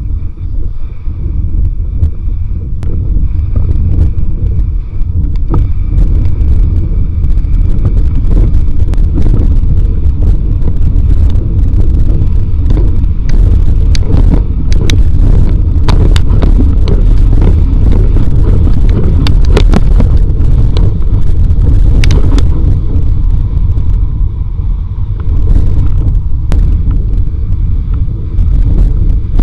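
Strong wind buffeting a mast-mounted action camera on a planing windsurfer, a loud, steady low rumble, in a force 5–6 wind. Over it come many sharp slaps and cracks of water and spray, thickest in the middle.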